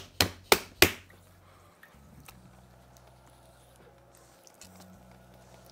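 Hands slapping a 4.5 kg lump of porcelain clay into shape on the wheel head, about three slaps a second, stopping about a second in. A low steady hum follows, the potter's wheel motor running, with a short break near the end.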